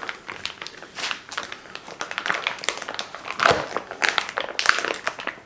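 Plastic meat packaging crinkling in irregular crackles as it is pulled open by hand.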